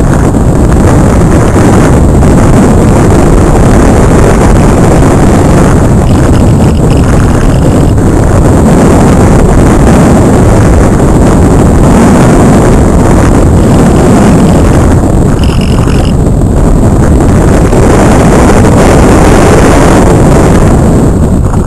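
Loud, steady rush of wind buffeting the microphone of a camera carried aboard a Multiplex Cularis model aircraft in flight. Faint higher tones come through briefly twice.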